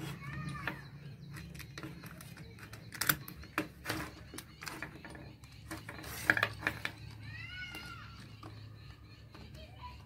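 Scattered small clicks and taps of wires being twisted onto brass terminal screws on a plastic switchboard, the loudest about 3 and 6 seconds in, over a steady low hum. A short, high, wavering call sounds twice in the background, near the start and about three-quarters through.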